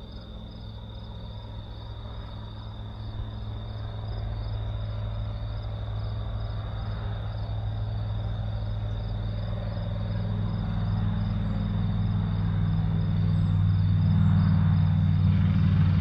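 A low engine drone, steady in pitch, growing gradually louder as it approaches, over a constant chorus of crickets chirping.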